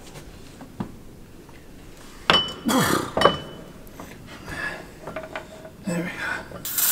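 Metal clinks and clanks of tractor hitch hardware handled by hand: small clicks, then two loud clanks about two and three seconds in, the first one ringing briefly.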